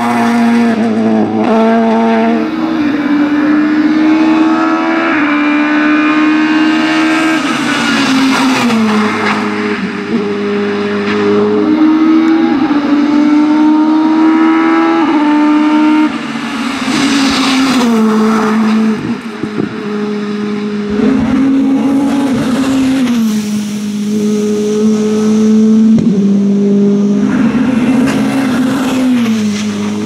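Renault Laguna BTCC touring car's naturally aspirated 2-litre four-cylinder racing engine at high revs, climbing at full throttle. The engine note holds high and steps up and down in pitch with each gear change, and several cars are heard in turn.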